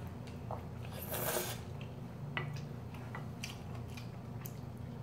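Quiet mukbang eating sounds: instant ramen noodles slurped about a second in, chewing, and a few light clicks, over a low steady hum.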